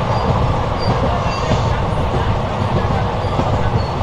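Passenger train heard from on board while running at speed: a steady rumble of coach wheels on the rails, with scattered small clicks.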